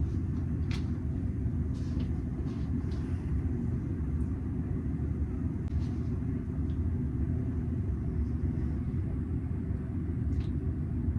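Steady low rumble of road and engine noise inside a moving car, with a few faint clicks.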